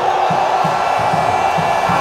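Large football stadium crowd cheering and shouting, steady and loud, over a regular low beat of about three a second.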